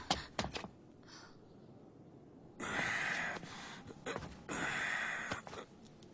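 Heavy breathing: two long, drawn breaths, after a few short clicks at the start.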